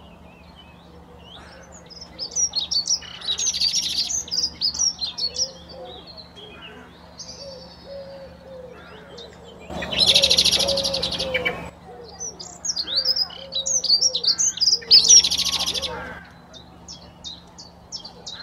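Male common blackbird singing: a run of song phrases broken by short pauses, three of them much louder and fuller than the rest.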